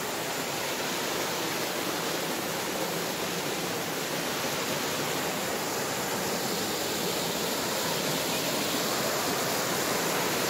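Mountain stream rushing and splashing over boulders: a steady rush of water.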